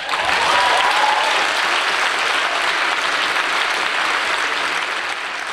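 Audience applauding steadily at the end of a dance performance.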